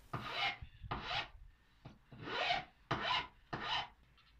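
Metal hand file stroked across the top edge of a plywood panel, rounding it over: about five strokes at an uneven pace, which stop shortly before the end.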